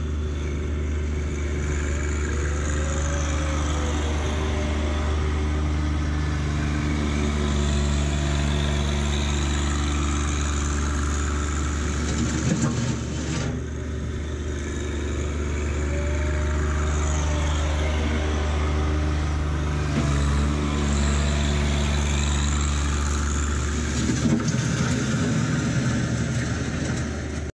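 John Deere 1025R subcompact tractor's three-cylinder diesel running steadily, its pitch rising and falling gently a couple of times, with short bursts of rattling about halfway through and again near the end.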